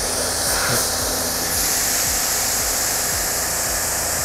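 Pressure washer wand spraying water at very close range onto a car's painted hood, a loud steady hiss with a low hum underneath, as it blasts off lichen and grime that cleaning products would not remove.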